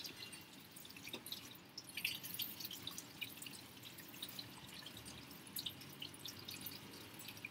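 Faint, irregular dripping and small ticking pops of water in a homemade steam rig, where steam piping runs down a clear downcomer into a bucket of cold water.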